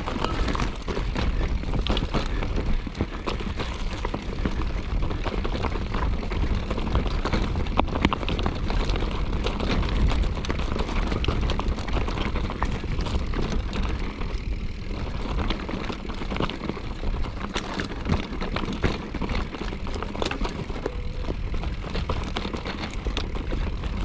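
Wind rumbling on the microphone of a camera carried on a moving mountain bike ride, with many small clicks and rattles from the bike jolting over rough trail.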